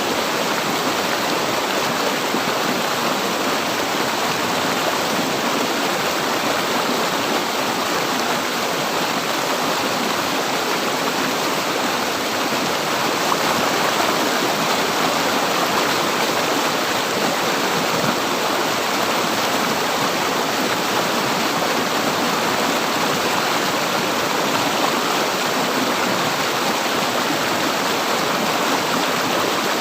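River water flowing over rocks: a steady, even rush and splash without a break.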